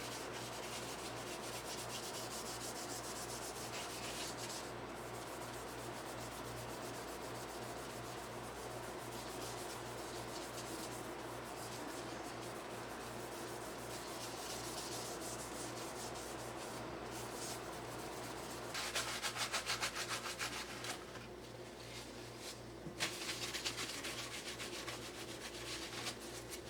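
Fine abrasive rubbed back and forth over a Bakelite utensil handle, sanding it smooth. The scratchy strokes run on steadily and turn quicker and louder twice in the last third.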